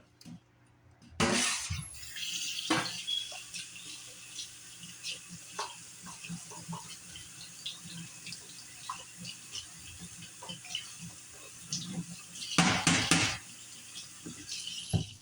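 Kitchen tap turned on, running water steadily into the sink or a container with small clinks, rushing louder for a second or so near the end before it is shut off.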